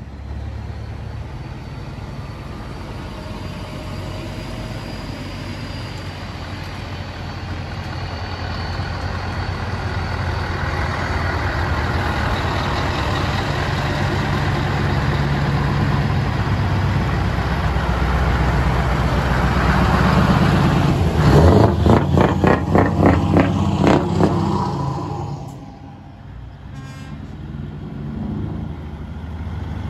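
Heavy truck diesel engines running as trucks pull slowly past one after another, the engine note building in loudness. Among them is a Scania 164L 580's V8. About three-quarters of the way through there is a loud run of rapid, evenly spaced engine pulses, after which the sound drops off sharply.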